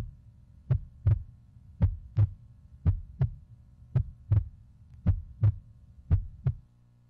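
Slow heartbeat sound effect: paired lub-dub thumps a little under once a second, that stop shortly before the end.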